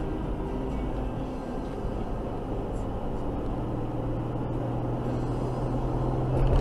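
Car driving on a road, heard from inside the cabin: steady engine and tyre drone with a low hum that grows louder near the end.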